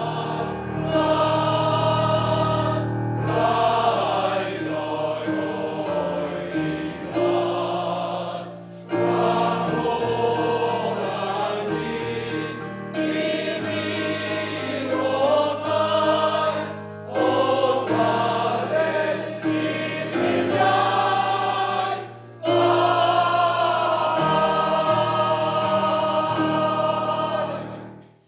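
Male voice choir singing in close harmony, phrase after phrase with short breaths between, ending on a long held chord.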